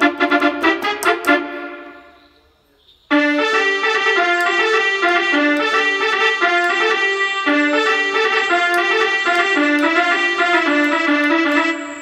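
Yamaha PSR-F50 electronic keyboard playing a bus-horn melody in a brass-like voice, in imitation of a Sri Lankan musical bus horn. A few quick short notes open it, and it goes quiet about two seconds in. A continuous run of stepping notes follows from about three seconds and stops just before the end.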